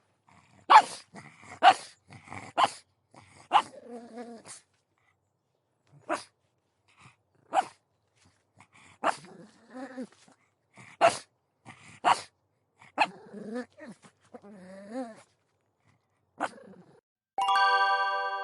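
Pug barking in short, sharp yaps, about a dozen at irregular spacing with pauses of up to a few seconds, with lower, wavering grumbles between some of them. Near the end a bright chime strikes and rings on.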